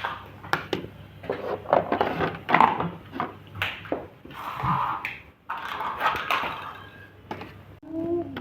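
Kitchen work: cookware and utensils knocking and scraping in an irregular run of clatters and short rustling bursts, over a low steady hum.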